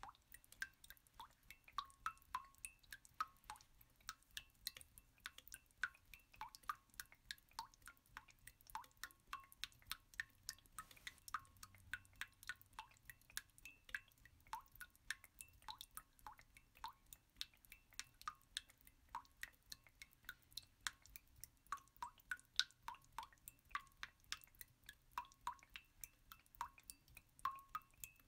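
Quiet, rapid water-drop plinks, several a second, on two recurring pitches: a drip-sound background track that carries on unchanged across the cooking shots.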